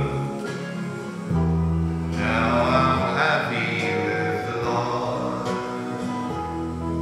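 Rock band playing live: guitar over low sustained bass notes, with a man singing.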